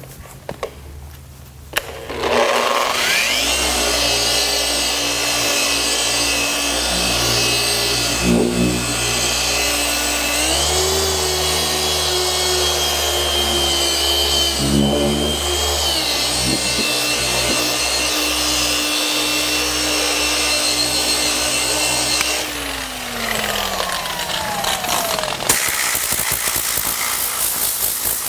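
Dual-action orbital polisher with a microfiber pad cutting with compound on a painted hood panel. It whines up to speed about two seconds in and runs steadily, its pitch stepping up for about five seconds midway and then back down. It winds down with a falling whine, followed by a short noisy burst near the end.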